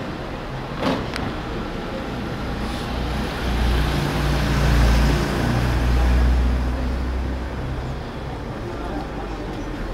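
A motor vehicle passing on a nearby road, its low engine rumble swelling about three and a half seconds in, loudest around five seconds and fading away, over steady street noise. A sharp click about a second in.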